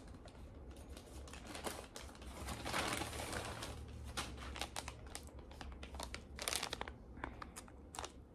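Clear plastic packaging around an Apple Watch band crinkling and rustling as it is handled, in irregular bursts with small clicks, loudest about three seconds in.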